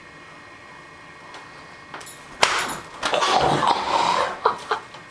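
A single sharp smack about two and a half seconds in, followed by nearly two seconds of rustling, scuffling noise with a few short knocks.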